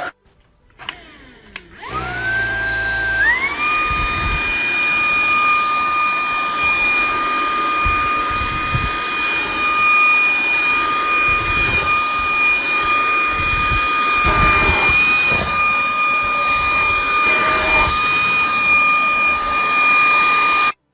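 Tineco A10 Hero cordless stick vacuum's 350 W motor starting up with a rising whine, which steps up higher about three seconds in. It then runs steadily with a high whine and airflow hiss, with a few low bumps, until it cuts off suddenly near the end.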